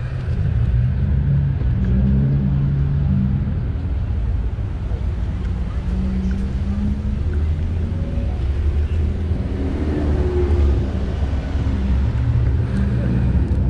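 Steady low rumble of wind buffeting a bike-mounted camera's microphone while riding, over city street noise with passing cars and faint voices.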